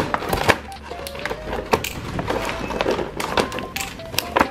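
Sharp clicks and rustling as plastic toy coins and their packaging are handled, over background music with a simple melody.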